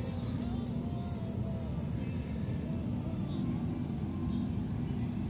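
Night-time outdoor ambience: a steady low rumble with a continuous high, thin cricket trill running through it.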